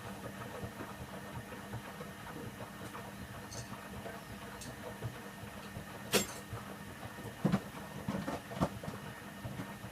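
Candy Aquamatic 1000T compact washing machine running an empty Cotton 60 wash, its motor and drum turning with a steady hum. A few sharp knocks come about six seconds in and again around seven and a half to eight and a half seconds.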